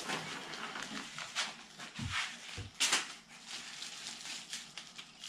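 Packing material being handled, with irregular rustling and crinkling and a couple of dull knocks about two seconds in.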